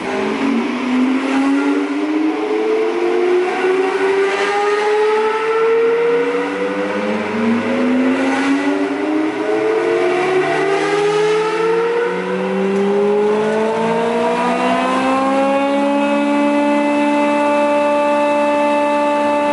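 Pagon PP-081 thickness planer being switched on: its motor and cutterhead spin up with a whine that rises steadily in pitch for about sixteen seconds. It then settles into a steady run at full speed.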